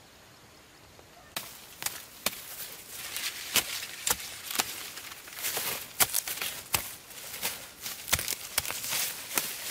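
Dry corn stalks and leaves being pulled and broken by hand, crackling and snapping. A quick run of sharp cracks over rustling starts about a second in.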